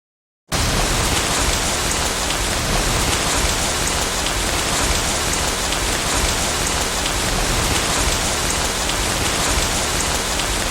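Heavy rain sound effect: a steady downpour that cuts in abruptly about half a second in.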